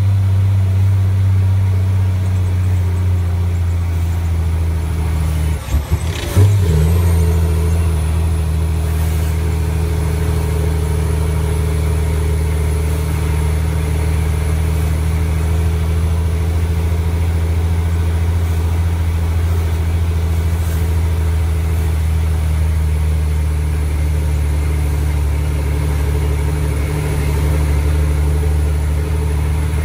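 Mack DM water truck's diesel engine running steadily under way, heard from inside the cab as a deep drone. About six seconds in the drone breaks briefly with a couple of knocks, then settles back to its steady note.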